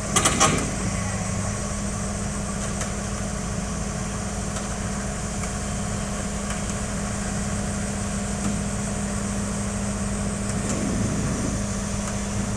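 Heavy diesel engine idling steadily, with a quick cluster of sharp metallic knocks in the first half second.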